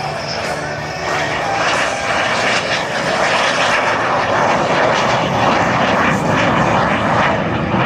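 Lockheed T-33 jet trainer's Rolls-Royce turbojet engine on a slow, low, gear-down pass. Its steady rushing jet noise grows louder about a second in and stays loud as the jet comes closer.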